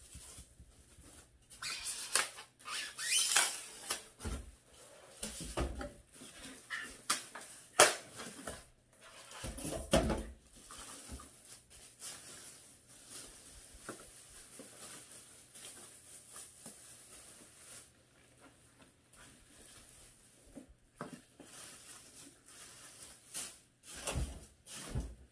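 Plastic wrap and bubble-wrap packaging crinkling and rustling as grill parts are handled and unwrapped, with scattered clicks and a few dull thumps as pieces are set down.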